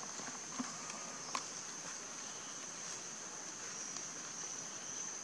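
Steady high-pitched insect drone, with a few faint taps in the first second or so.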